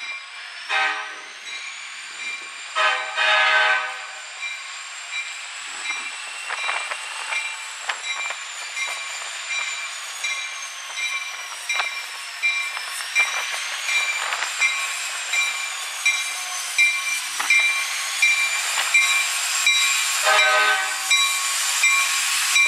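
CSX diesel freight locomotive sounding its horn in short blasts about a second in, again around three seconds, and near the end, with its bell ringing steadily in between as the train rolls slowly along the street track, wheels clicking.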